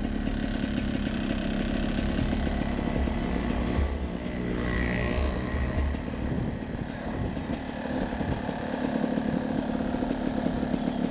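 Off-road vehicle's engine running as it drives, a steady rough drone that eases off for a few seconds in the middle.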